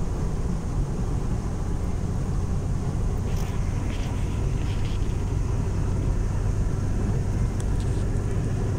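Steady low rumble of tyre and engine noise inside a car's cabin while cruising on a motorway.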